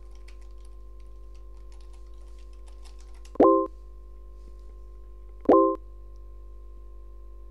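Computer keyboard typing for about three seconds, then two short electronic chime tones about two seconds apart: the web chat's notification sounds, the first as a message is sent and the second as a reply arrives. A faint steady hum runs underneath.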